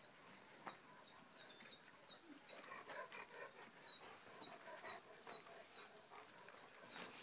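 Several dogs milling close together, faint, with soft dog sounds and a steady run of short high chirps, about two to three a second.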